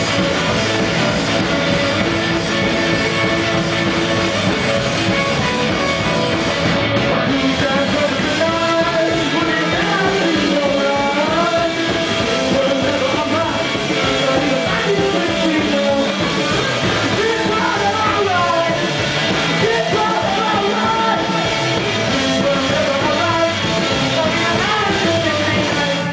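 Live rock band playing loud with electric guitars and drums, ending abruptly right at the close.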